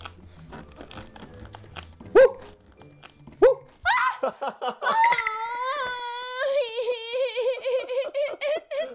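Two short high rising squeals come about two and three and a half seconds in. Then, from about four seconds, a long high-pitched squeal breaks into quick giggling.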